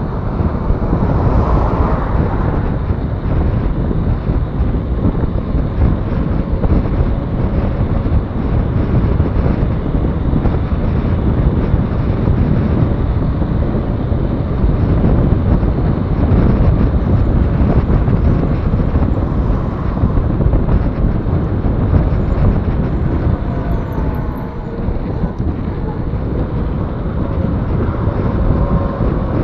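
Steady wind rushing over the microphone of a camera carried on a moving mountain bike, with road traffic running alongside.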